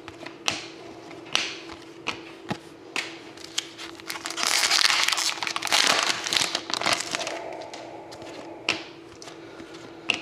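A hockey card pack's foil wrapper crinkling as it is torn open, loudest from about four to seven seconds in, with sharp clicks of cards being handled before and after. A steady low hum runs underneath.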